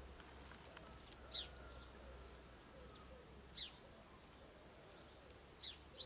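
Faint woodland bird calls: four short, high chirps, each sliding down in pitch, about two seconds apart, the last two close together.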